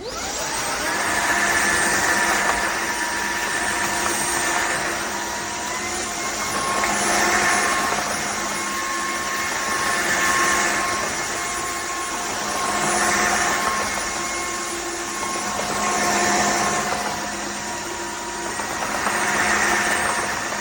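Dreame H14 cordless wet-dry vacuum mop running in auto mode: a steady motor whine with the rush of suction. It spins up at the start. The pitch steps up about six seconds in and drops back near the end as auto mode adjusts the power, and the sound swells and fades every three seconds or so.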